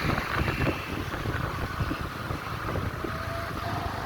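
Road traffic rumble with wind buffeting the microphone, and a faint steady tone that sets in about three seconds in.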